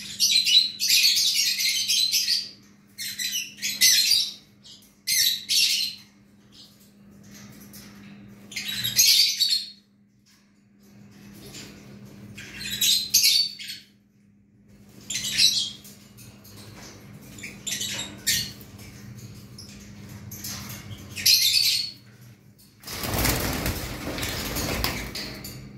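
Caged lovebirds, Fischer's lovebirds among them, chattering in shrill bursts of high chirps every second or two, over a faint steady low hum. About 23 seconds in comes a loud rustling burst of flapping wings lasting two or three seconds.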